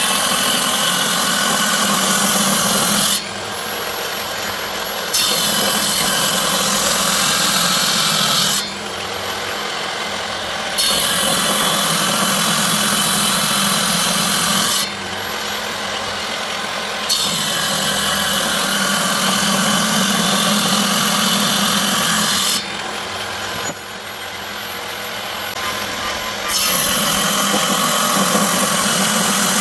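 An electric woodworking tool cutting wood in five passes of a few seconds each, with its motor still running in the quieter gaps between passes.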